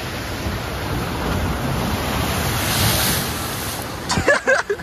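Water rushing and splashing as riders come down a multi-lane water slide and skid through the water-filled runout lanes, a steady rushing noise that grows brighter about three seconds in. Short shouts near the end.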